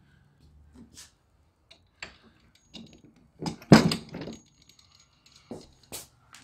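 Metal brackets and roller frame of a Big League Lawns Checkmate striping kit clattering and knocking as the loosely bolted roller is shifted by hand to centre it behind the mower. The loudest clatter comes about halfway through, with a few lighter clicks before and after.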